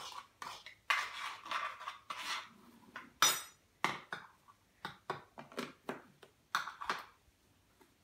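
Metal teaspoons stirring and scraping dry citric acid and baking soda powder in small plastic bowls: a run of short scrapes and clicks, with one sharper ringing clink of metal about three seconds in.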